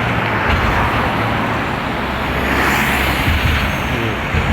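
Road traffic running loud beside a bridge, whose span knocks and rattles under the load. The knocking is blamed on the bridge resting without rubber pads, or on loose bolts.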